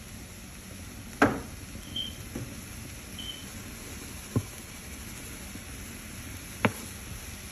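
Seasoning shakers being shaken and knocked over a wok: four or five sharp knocks spaced one to two seconds apart, the loudest about a second in, over a steady background noise.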